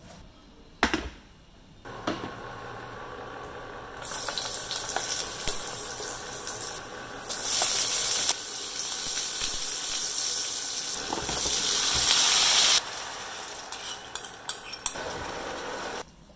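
Hot oil sizzling in a frying pan as sliced shallots and garlic fry, a steady hiss that jumps louder about halfway through when more shallots go in and eases off near the end. A sharp clink of a utensil comes about a second in.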